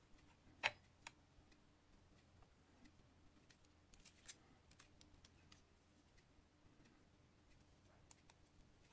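Faint scattered clicks and taps from hands handling wires and the opened tablet on a workbench, with one sharp click under a second in and a few more about four seconds in.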